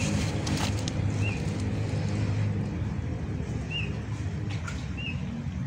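Low engine rumble of a motor vehicle dying away, with a small bird giving short, high chirps about four times.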